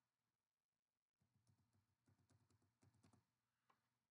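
Very faint typing on a computer keyboard: a quick run of keystrokes for about two seconds, starting about a second in, as a numeric password is entered.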